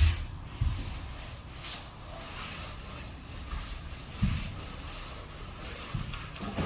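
Hand rubbing and scrubbing on the floor surface in irregular strokes, with a few dull knocks.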